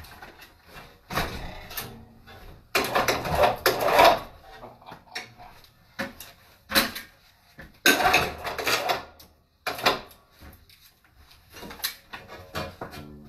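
Irregular bursts of scraping and knocking, about half a dozen, each lasting a fraction of a second to about a second and a half, the loudest about three to four seconds in and again about eight seconds in.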